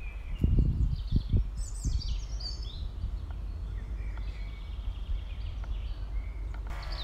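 Small birds singing and chirping, a mix of short high twittering phrases, over a low rumble of wind on the phone's microphone that gusts louder about half a second to a second and a half in.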